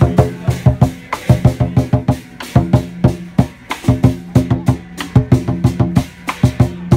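Lion-dance percussion: a large Chinese drum beaten fast with two sticks in a driving rhythm, with hand cymbals clashing along.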